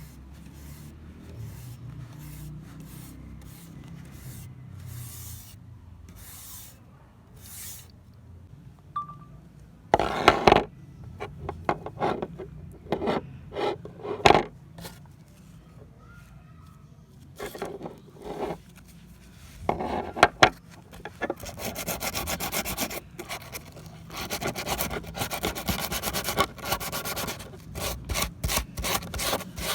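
Hand rubbing and scraping strokes on the metal of old rusty pliers. They are faint and sparse at first, turn louder and irregular about a third of the way in, and become a quick, fairly even run of strokes near the end.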